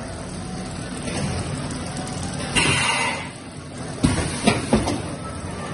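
Automatic skin-packaging machine for carton-board trays running with a steady mechanical hum. A short hiss comes about two and a half seconds in, then a few sharp knocks and clatters about a second later.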